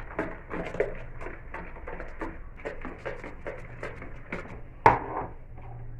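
Hand whisk beating cake batter of creamed margarine, sugar and eggs in a mixing bowl, scraping and clicking against the bowl at about four strokes a second. There is a louder knock about five seconds in.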